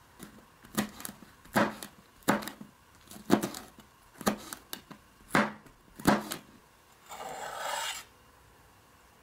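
Kitchen knife chopping a green hot chili pepper on a plastic cutting board: about a dozen uneven knocks, roughly one or two a second. Near the end comes a scrape lasting about a second as the chopped pepper is swept up with the blade.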